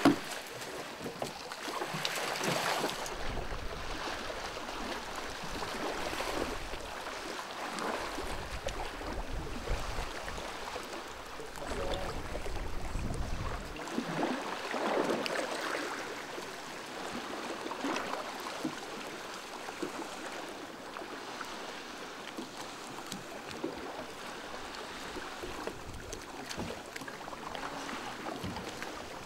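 Shallow lagoon water lapping and splashing, swelling every few seconds, with wind rumbling on the microphone through the first half.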